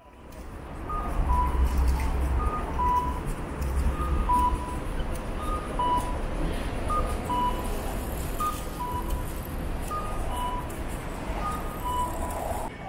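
A two-tone electronic chime, high then low, repeating about every second and a half over a low rumble and background noise.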